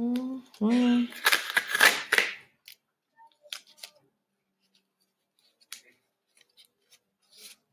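Two brief rising tones at the start, then a loud rasp of adhesive tape pulled off the roll for about a second. After that, light crinkles and clicks of tape and plastic drinking straws being handled and pressed together.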